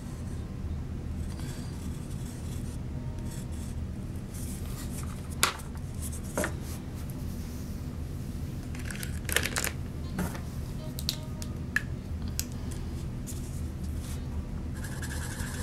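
Faint scratching of a pencil drawing on a paper cup, then scattered clicks and taps as the cup and markers are handled and set down on a table. A steady low hum runs underneath.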